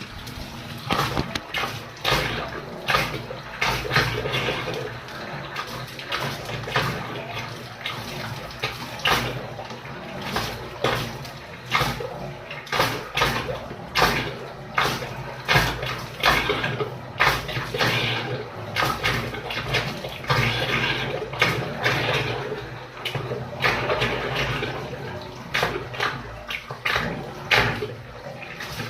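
Water splashing and sloshing in irregular bursts, over a steady low hum.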